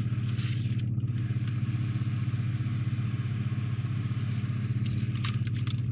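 A steady low mechanical hum, with a few light clicks of plastic model parts being handled about a second in and again near the end.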